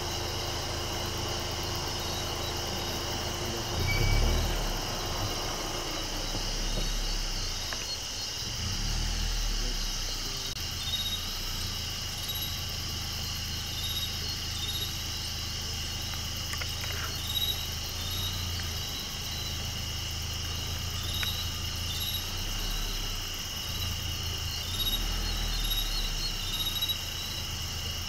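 Crickets and other night insects chirring steadily in high, pulsing tones over the low, steady hum of an idling vehicle engine. A dull thump about four seconds in is the loudest moment.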